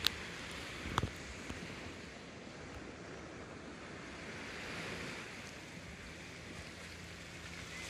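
Sea surf washing on a beach: a steady wash of noise that swells a little around the middle. Two short sharp clicks come within the first second or so.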